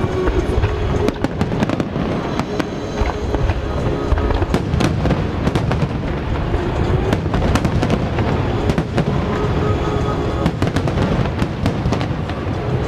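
Professional aerial fireworks shells bursting in a dense, continuous barrage of deep booms and sharp cracks during a display finale.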